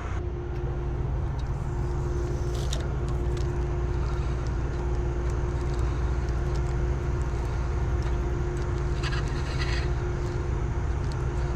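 Steady low mechanical drone with a constant humming tone, as from a distant engine, unchanging throughout; a couple of faint brief rustles about three and nine seconds in.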